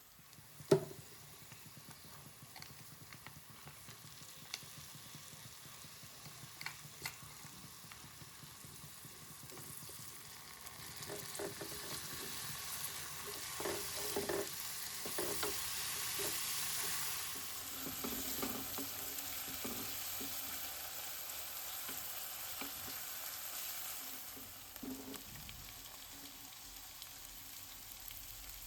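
Food frying in a pan while it is stirred, with scattered clicks and scrapes from the utensil. The sizzle swells about a third of the way in and eases off near the end, and a sharp knock comes just after the start.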